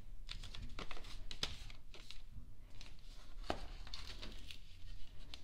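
Album packaging being handled: crinkling and rustling, with a few sharp taps and clicks scattered through.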